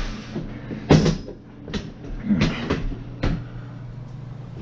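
Old fluorescent light fixture parts being handled and set down: about five sharp knocks and clatters, the loudest about a second in, over a steady low hum.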